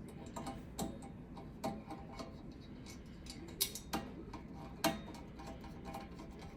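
Screwdriver turning a screw to fasten the oven igniter, making a run of irregular light clicks and ticks, the loudest about three and a half and five seconds in.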